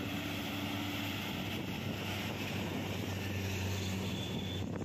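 Heavy diesel trucks, Tata Signas, driving past close by: a steady low engine drone with tyre noise that swells as a truck passes, and a thin high whine for about a second near the end.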